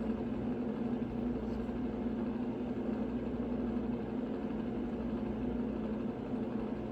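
Steady mechanical hum from a running motor, an unchanging drone with one constant pitch and no breaks.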